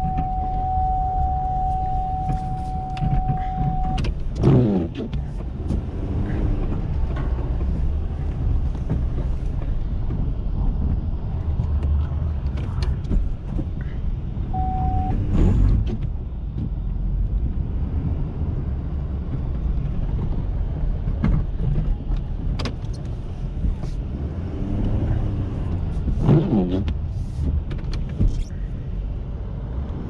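Ford F-350's 6.7-litre Power Stroke turbo-diesel V8 running steadily under load while plowing snow. A steady warning tone sounds for the first four seconds and briefly again near the middle. Three short electric-motor whirs come about eleven seconds apart.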